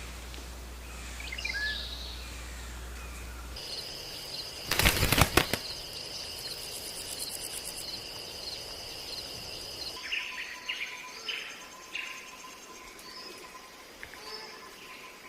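Outdoor nature sounds across several short clips: scattered bird chirps, a steady high-pitched whine, and a brief loud burst about five seconds in that could be wings flapping.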